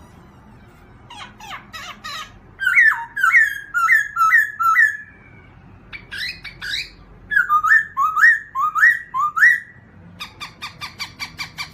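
A songbird singing, the bird the uploader calls a robin, in phrases of repeated whistled notes that rise and fall. There is a short break about five seconds in, and the song ends with a fast run of short notes.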